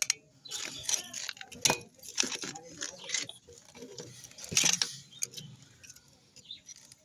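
Metal hand tools and parts clinking and clicking as they are handled during a front wheel bearing replacement, with irregular sharp knocks and some rustling.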